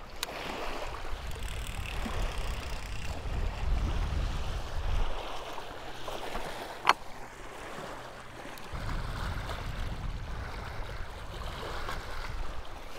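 Wind rumbling on the microphone over small waves lapping on a rocky lakeshore, with one sharp click about seven seconds in.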